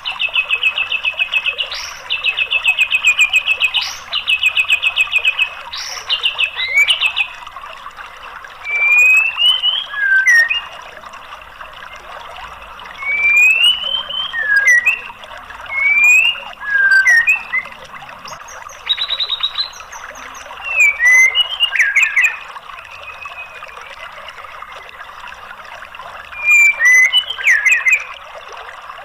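White-rumped shama (murai batu) singing: a rapid repeated trill for the first several seconds, then separate whistled phrases that slur up and down, with short pauses between them. A steady hiss runs underneath.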